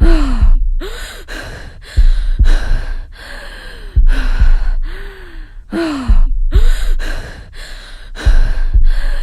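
A person breathing heavily into the microphone, with loud voiced gasps and sighs about every two seconds. Each breath has a short rise and fall in pitch, and the air blowing on the microphone makes a low rumble at the start of each one.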